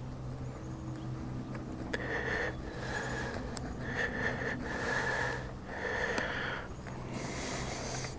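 Small knife sawing into a grapefruit's rind: a run of about six short rasping strokes, starting about two seconds in.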